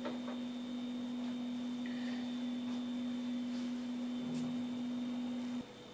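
A steady low hum at a single, unchanging pitch, with a faint high whine under it; the hum cuts off suddenly near the end.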